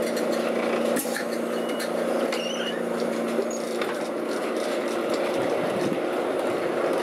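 Lisbon tram running, heard from inside the car: a steady electric motor hum and running noise with a few clicks and rattles.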